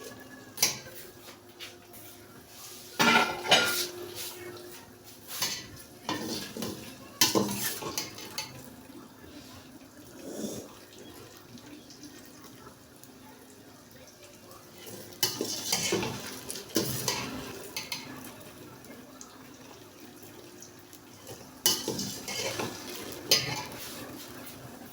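Metal spoon scraping and clinking against a cooking pot in irregular bursts while stirring vegetables frying in oil.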